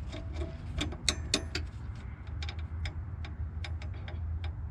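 Irregular sharp metallic clicks and taps from a wrench working on a nut and bolt of the exhaust mount, over a steady low hum.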